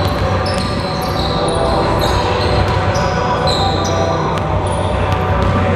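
Basketball sneakers squeaking on a hardwood gym floor in many short, high-pitched chirps, with a basketball bouncing, all echoing in a large gym.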